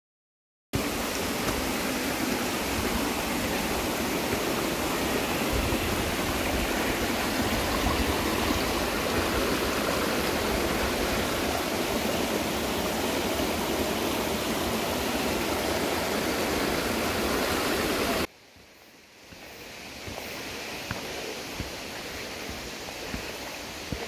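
Mountain stream water rushing steadily over rocks and small cascades. About three-quarters of the way through it cuts off suddenly to a much quieter background with a few faint clicks.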